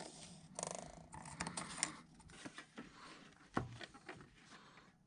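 Felt-tip marker squeaking and scratching in short strokes on a sheet of stainless steel as it traces around a template; a sharp knock a little past halfway.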